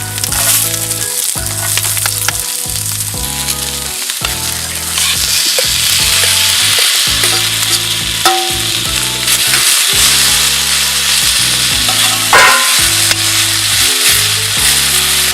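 Food frying in a hot pan, a dense sizzle with a few sharp pops that grows louder about a third of the way in, over background music.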